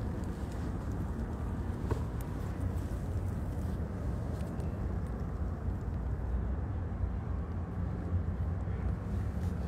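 Steady low rumbling background noise, with a faint click about two seconds in.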